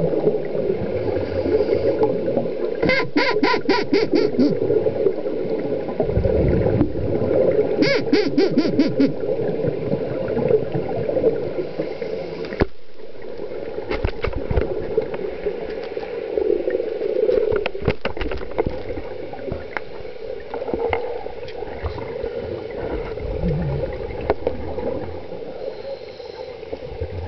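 Scuba regulator exhaust bubbles and gurgling, recorded by a camera underwater, with two short runs of rapid pulses, about five a second, around 3 and 8 seconds in.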